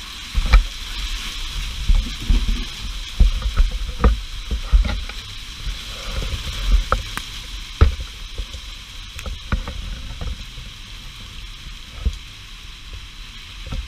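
Hailstorm: a steady hiss of hail and rain coming down on parked cars and pavement, with many sharp clicks of single hailstones striking. Irregular low thumps are heard, most of them in the first half.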